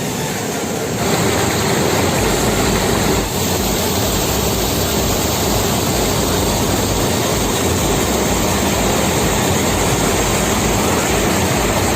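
Waterfall's steady rush of falling water, a loud even roar that grows louder about a second in.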